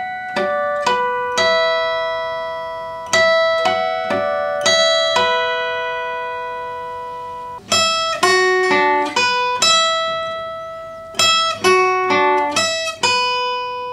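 Steel-string acoustic guitar playing a short melody of plucked, ringing notes. The first part is played in bell-like natural harmonics. About halfway through it switches to quicker, ordinary fretted notes.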